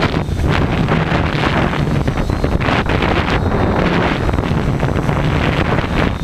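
Strong wind buffeting the microphone in uneven gusts, with a low steady hum underneath from the Tarot 680 hexacopter's propellers.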